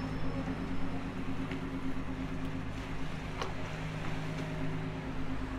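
A boat engine running steadily, a low, even hum with no change in speed. There is one brief click about three and a half seconds in.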